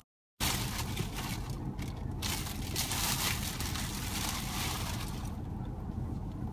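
Black plastic bag rustling and crinkling as it is handled and pulled open, over a low steady hum inside the car; the crinkling dies down about five seconds in. The sound drops out completely for a split second at the very start.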